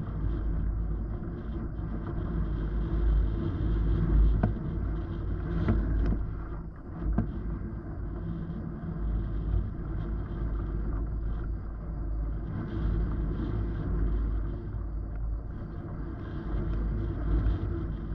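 Rushing air buffeting the camera microphone in paraglider flight: a steady low rumble that swells and eases, with a few light clicks about five to seven seconds in.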